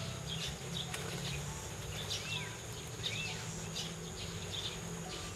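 Small birds chirping outdoors: repeated short chirps and a few brief arched whistled notes, over a steady high tone and a low hum.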